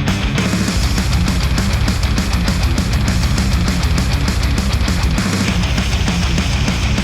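Heavy rock music with electric guitar, a strong low end and fast, evenly spaced cymbal hits, played back through closed-over studio headphones and picked up by microphones at the ear cups.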